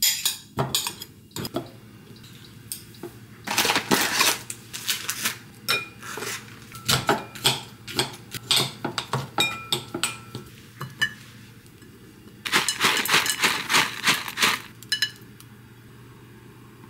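Metal spoons clinking and scraping against a glass mixing bowl while mixing, in irregular runs of quick clinks with a few short rings from the glass.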